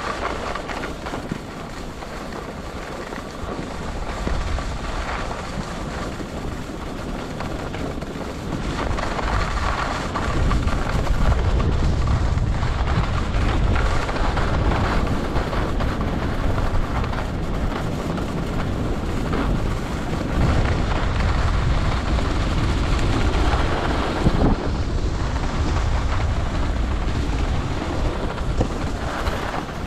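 Wind rushing over the microphone of a skier's point-of-view camera during a fast run down a groomed slope, with the skis scraping over the packed snow. It grows louder over the first ten seconds or so as speed builds, then stays steady.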